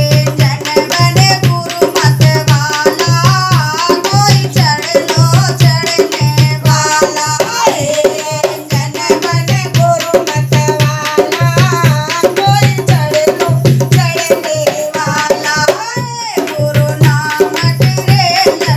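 Women singing a Hindi devotional bhajan to a hand-played dholak drum, with a steady rhythm of deep bass strokes under quick sharper hand strokes.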